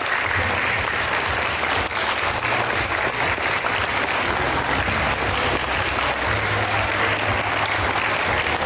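Audience of seated students clapping steadily, a dense continuous round of applause.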